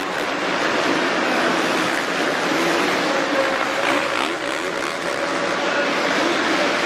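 Dirt bike engines revving up and down as riders race around a supercross track, over a steady din of arena noise.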